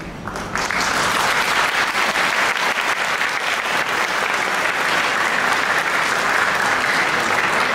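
Audience applauding: many hands clapping together, starting about half a second in and keeping up steadily.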